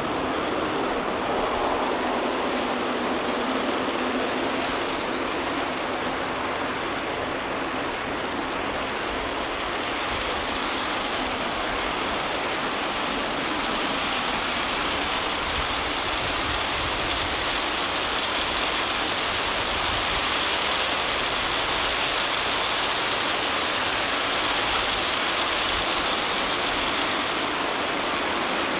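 A long G scale model freight train's cars rolling past on the track: a steady, dense clatter of many wheels, almost a hiss.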